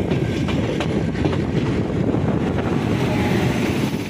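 Rumble of a moving passenger train heard from its open door, with wind buffeting the microphone and a few wheel clicks over the rails. An electric locomotive hauling covered goods wagons passes on the next track, and the rushing noise gets brighter near the end as it comes alongside.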